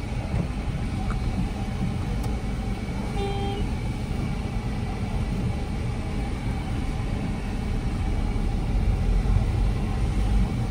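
Car being driven slowly into a parking spot: a steady low engine and road rumble that grows louder after about eight seconds, with a short beep about three seconds in.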